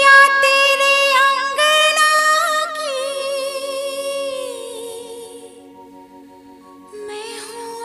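Singing: a high voice holds long, wavering notes over a steady low drone, sliding down to a lower, fainter note about four seconds in.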